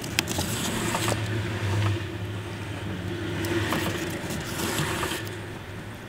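Steady low hum inside a car cabin, with several short scratchy scrapes as waxed thread is drawn through a hand-sewn leather steering-wheel cover.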